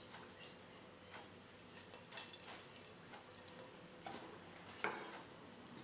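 Quiet drinking and eating sounds: sips of water from a glass, then scattered small clicks and clinks of a fork and glass on the table and plate, the sharpest about five seconds in.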